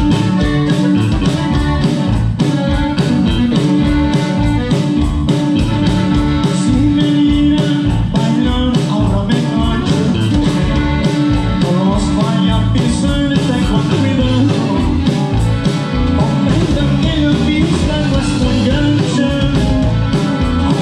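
Norteño band playing live: button accordion, bajo sexto, electric bass and drum kit, with a steady beat.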